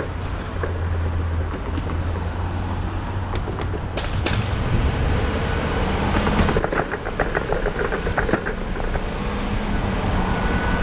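Ford shuttle bus riding along: a steady low engine hum whose pitch rises about halfway through as the bus speeds up, with sharp rattles and knocks from the body.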